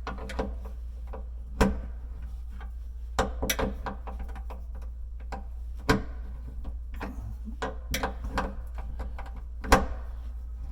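Irregular metallic clicks and knocks of a 7/16 open-end wrench being worked and re-seated on the nut of a countertop miter draw bolt, drawing the joint tight, over a steady low hum. The sharpest knocks come about six seconds in and near the end.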